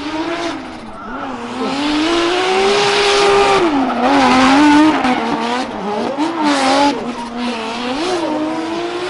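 Turbocharged Toyota 2JZ inline-six in a Volkswagen Beetle drift car at high revs, its pitch rising, holding and dropping repeatedly as the throttle is worked through the drift, over the screech of rear tyres spinning into smoke. Loudest about three to five seconds in.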